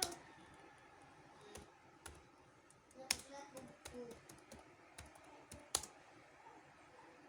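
Computer keyboard keys being typed on at an irregular, unhurried pace, with a few sharper, louder keystrokes among softer ones.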